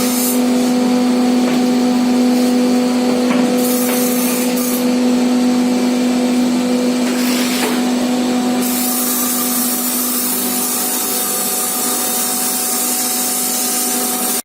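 CNC wood router running and carving wood: a steady spindle whine over a loud, hissy cutting and dust-extraction noise. About two-thirds of the way through, the whine fades and the hiss turns brighter.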